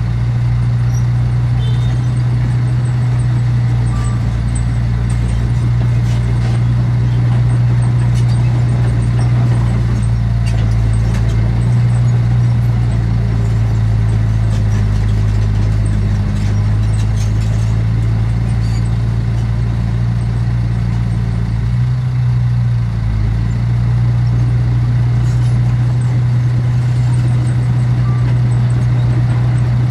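Heavy diesel engine of earthmoving equipment running steadily with a low, constant drone.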